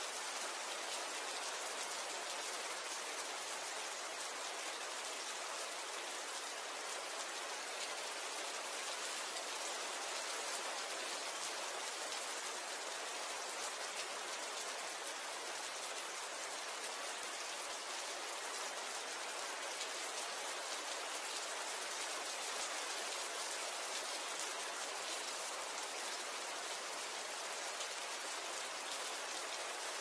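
Steady rain falling: a dense, even hiss of countless small drops that holds level without pause or change.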